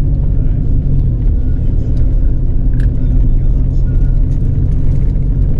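A vehicle's engine running steadily with a low rumble, heard from on board while travelling.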